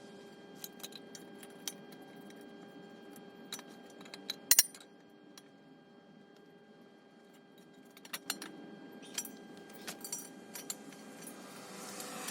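Light metallic clinks and taps of steel parts and tools being handled, with two sharp clinks close together about four and a half seconds in, over a faint steady hum.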